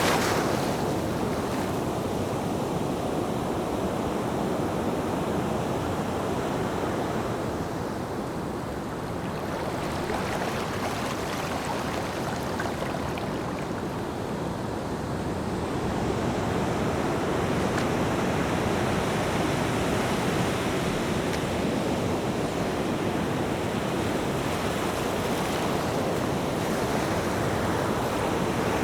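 Ocean surf: a continuous wash of waves that swells and eases slowly over several seconds.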